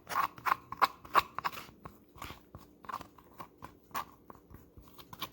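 Irregular crackling and sharp clicks of food and packaging being handled while a pita pizza is assembled, loudest and most frequent in the first two seconds, then sparser and fainter.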